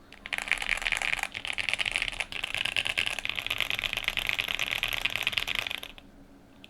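QK75N mechanical keyboard with lubed Gateron Blue Bubblegum switches, a POM plate and GMK Dracula keycaps being typed on very fast: keystrokes packed so close they run into a continuous clatter. It stops abruptly about six seconds in.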